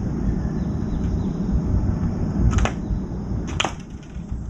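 Two sharp clicks about a second apart as a crow's beak strikes the stainless steel food bowl while it pecks at dry food, over a steady low rumble.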